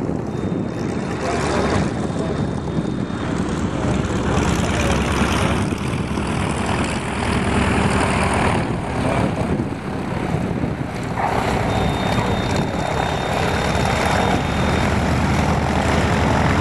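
A de Havilland Canada DHC-4 Caribou's two Pratt & Whitney R-2000 radial engines and propellers running as the aircraft lands and rolls out along the runway: a steady engine and propeller drone.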